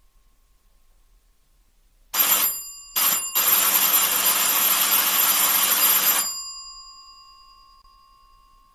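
Electric doorbell ringing in three presses: a short ring, a very brief one, then a long ring of about three seconds that dies away with the bell still humming.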